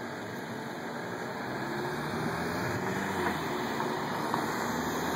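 Steady rumble of motor vehicle noise, slowly growing louder.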